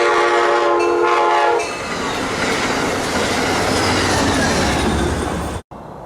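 CTrail Hartford Line passenger train blowing its horn, which stops about a second and a half in, followed by the loud rush and wheel noise of the train passing at speed; the sound cuts off abruptly near the end.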